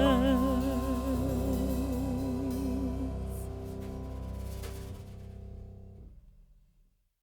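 Background music ending on a long held note with a wavering vibrato, fading out and stopping about six and a half seconds in.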